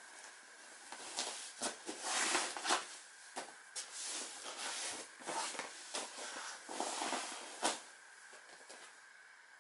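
Scuffing and rustling of a person shifting his body and legs across a vinyl folding exercise mat, with a few sharp taps among them, starting about a second in and dying away near the end.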